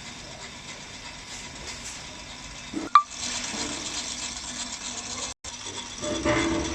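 Automatic bottle-capping machine running with a steady hiss, and one sharp clack about three seconds in; the running noise grows louder near the end.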